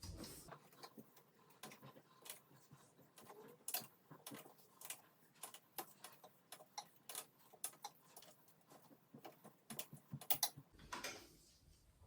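Faint, irregular small clicks and ticks from hands working a roll of PTFE tape round a plastic flush pipe fitting, with a quick run of clicks near the end.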